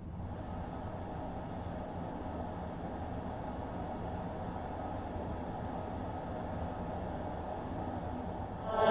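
Crickets chirring steadily in a night-time ambience, over a low, even hum.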